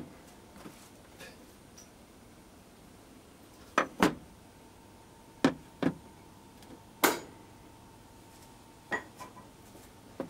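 Metal parts being handled on a compressor's metal top plate: about six sharp clinks and knocks a second or two apart, the loudest about seven seconds in with a short ring. A faint steady tone runs underneath.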